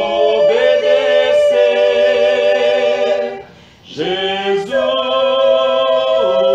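Two women and a man singing a Portuguese gospel hymn a cappella in harmony, holding long notes, with a brief break for breath a little past halfway.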